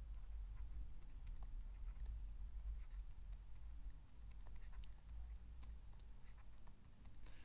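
Stylus tapping and scratching on a tablet as a word is handwritten: light, irregular small clicks over a low steady hum.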